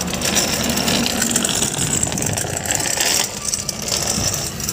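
Steady engine and road noise of a car moving slowly in traffic, heard from inside the cabin.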